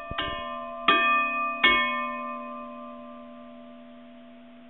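Chime of bell tones: three struck notes about three-quarters of a second apart, each ringing on, then the chord rings out and slowly fades.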